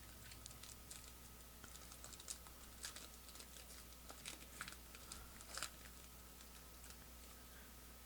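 Faint, scattered light clicks and taps of trading cards being handled and flipped, over the first six seconds or so, then near silence.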